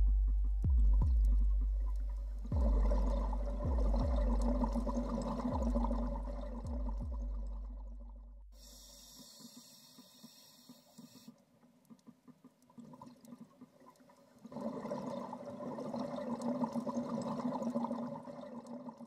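Bubbling, gushing water in two bursts several seconds long. Under the first burst, the deep low notes of ambient background music die away.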